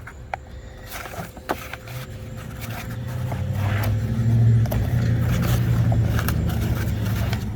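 Clicks and scrapes of parts and packaging being handled in a cardboard box, while a low engine-like rumble, probably a nearby vehicle, swells from about two seconds in and holds steady as the loudest sound.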